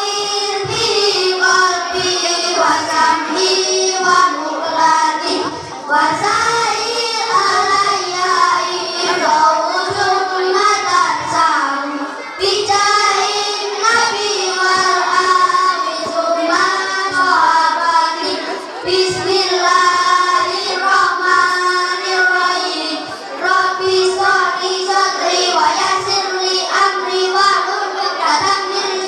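A group of children singing together in one melodic line, with no instruments audible.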